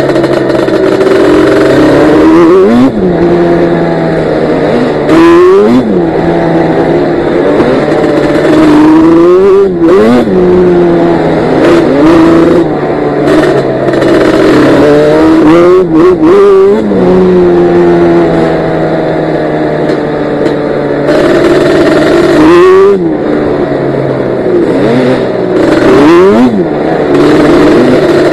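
Yamaha Banshee's twin-cylinder two-stroke engine running hard under the rider, revving up and dropping back over and over with throttle changes and gear shifts.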